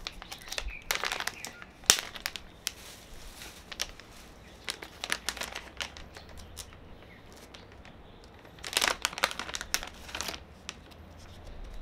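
A packaging bag crinkling as it is worked open by hand, in irregular bursts of crackling. The bursts are busiest about a second in, around five seconds and again near nine seconds, with a quieter stretch in between.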